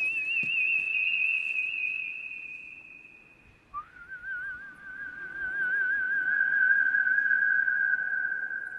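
A man whistling to call his horse: one long, warbling high note, then a second long, warbling note, lower, that slides up into place about four seconds in and is held.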